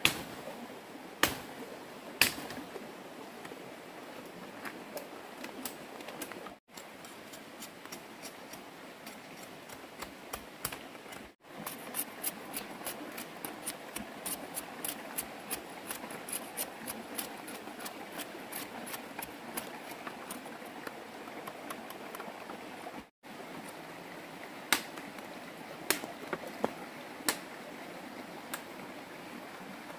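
Machete blade striking and trimming a bamboo pole: sharp irregular knocks, with a run of quick light ticks in the middle as the stem is scraped and stripped. Under it, a steady hiss of running stream water.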